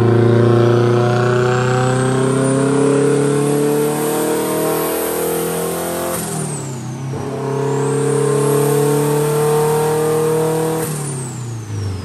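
Turbocharged Volvo Red Block four-cylinder revving hard under load on a chassis dyno, its pitch climbing steadily with a rising turbo whistle. It lets off briefly about halfway, pulls up through the revs again, then backs off near the end as the turbo whistle falls away.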